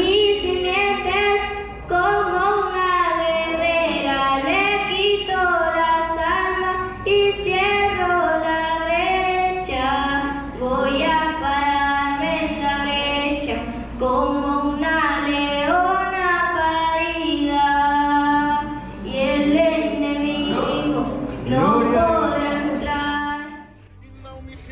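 Young girl singing solo into a handheld microphone, her voice carried through loudspeakers; the singing stops near the end.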